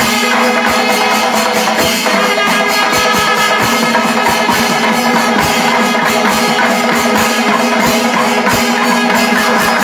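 Kerala panchavadyam temple ensemble playing: timila hourglass drums and maddalam barrel drums struck in fast, dense strokes, with metallic cymbal jingle and a steady held horn tone from kombu horns underneath.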